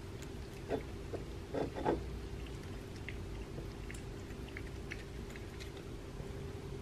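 A cat eating soft canned salmon from a small ceramic saucer: faint wet chewing and licking with scattered small clicks, and a few louder smacks about a second and two seconds in, over a steady low hum.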